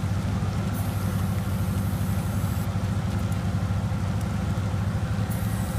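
A motor vehicle engine idling steadily. A high hiss comes in about a second in and lasts roughly two seconds, with another short hiss near the end.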